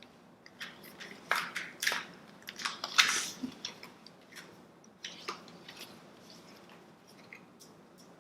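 Packaging rustling and crinkling in several short bursts, loudest about three seconds in, as a small item is unwrapped by hand.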